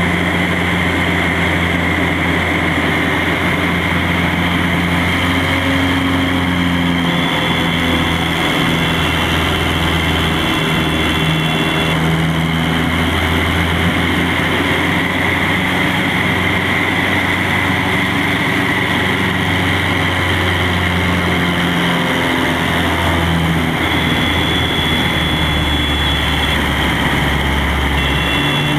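Engine and propeller of a light high-wing plane in flight, heard from inside the cockpit: a loud, steady drone whose low note shifts slightly now and then.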